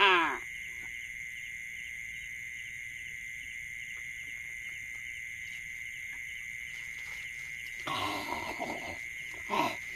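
Steady night chorus of insects and frogs: one continuous high-pitched trill that holds unchanged throughout.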